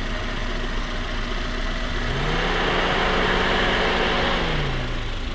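Warmed-up Toyota car engine idling. About two seconds in it revs up briefly, holds for a couple of seconds and settles back to idle near the end.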